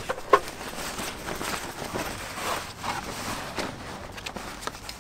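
Wet nylon motorcycle cover rustling and crinkling as it is pulled off the bike, in irregular bursts, with a sharp click about a third of a second in.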